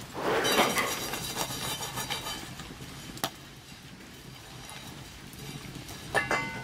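Knocks and metal clinks at a wood-burning hobo stove: a rushing hiss over the first two seconds, a single sharp knock a little after three seconds, and a short ringing metal clink near the end.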